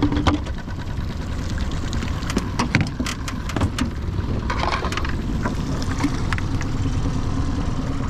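Scattered clicks and light knocks of fishing tools and tackle being handled in an aluminium boat, over a steady low rumble.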